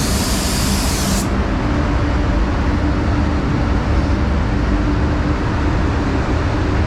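Spray gun hissing as a coat of pearl is sprayed, cut off sharply about a second in as the trigger is released. A spray booth's air flow keeps up a steady hum underneath.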